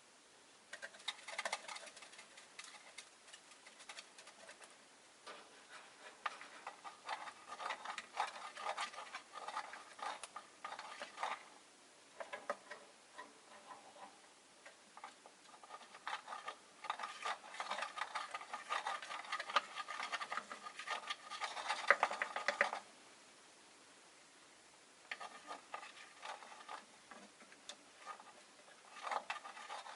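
Rosy-faced lovebirds chattering: rapid runs of short chirps and clicks in bursts, with a busy stretch before a sudden lull about three-quarters of the way through, and chatter picking up again after it.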